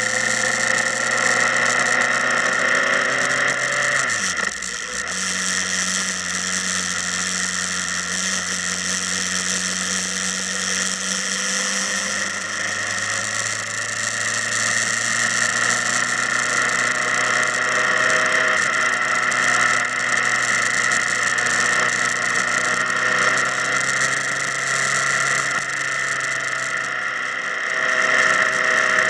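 Motorcycle engine running steadily; its note drops briefly about four seconds in, then settles again.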